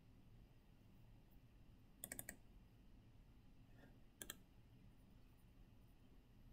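Near silence broken by a few faint computer mouse clicks: a quick run of about four clicks about two seconds in, and a pair of clicks about two seconds later.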